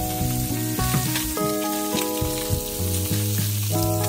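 Salmon fillets sizzling as they fry in melted butter in a nonstick pan, a steady hiss, under instrumental background music of held notes.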